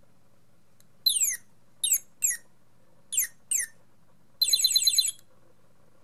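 Motion-activated plastic toy cardinal playing a northern cardinal song through its small chest speaker: five steeply down-slurred whistles, then a short rapid trill near the end.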